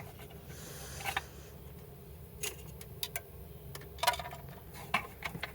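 Light metallic clinks and taps at irregular intervals as engine parts are handled while a timing cover is being fitted.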